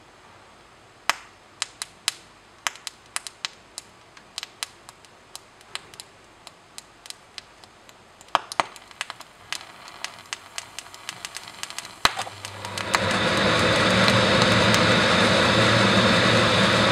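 Hypophosphorous acid decomposing on a hot glass petri dish. Irregular sharp pops and crackles come for about twelve seconds. Then a loud, steady rushing noise sets in as the phosphine gas it gives off ignites and burns in air.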